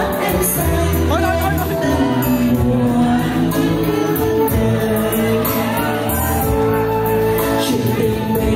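A song playing: singing over instrumental accompaniment with a steady bass line.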